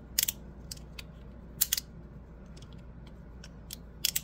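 Double-sided magnetic fidget slider snapping between its magnetic stops: sharp clicks in irregular clusters, the loudest about a quarter second in, around a second and a half in, and a quick pair near the end.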